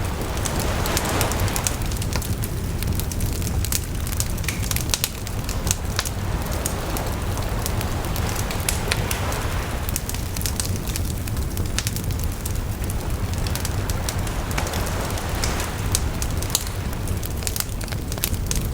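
Wood fire crackling and popping with frequent sharp snaps, over a steady low rumble. Sea waves wash in and recede beneath it, swelling three times.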